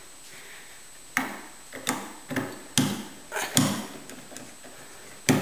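Lock pick and tension wrench working a cheap three-wafer lock: a run of irregular metal clicks and scrapes about every half second as the wafers are raked, with a louder click near the end.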